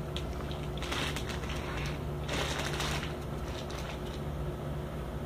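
Rustling of bedding and clothing as a toddler crawls across a bed, in two short bursts about a second and two and a half seconds in, over a steady low hum.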